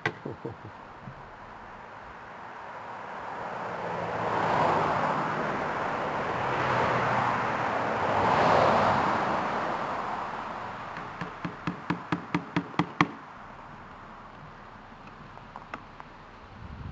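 A rushing noise swells and fades over several seconds, then a quick run of about ten sharp knocks, some five a second, grows louder and stops abruptly.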